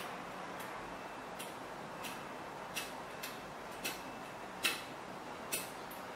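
A series of small, sharp clicks at uneven intervals, about nine in all, one of them louder a little past halfway, from a small hand tool worked against a part on a workbench.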